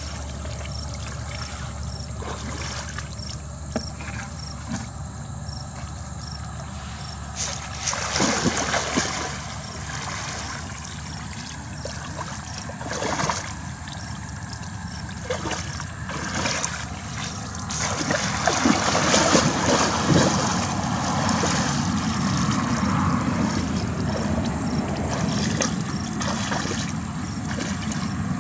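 Shallow pond water splashing and sloshing as a woven bamboo fish-scoop basket is dragged and lifted through it by a wading person, over a steady low rumble. The splashing comes in several bouts, the longest and loudest about two-thirds of the way through.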